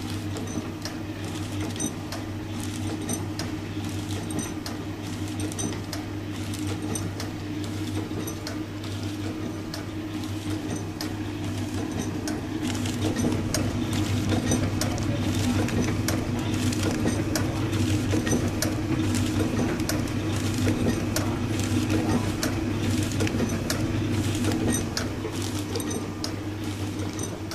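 Small vertical four-side-sealing powder sachet packing machine running: a steady motor hum with regular mechanical clicking as it forms, seals and cuts the bags. It grows louder in the middle stretch.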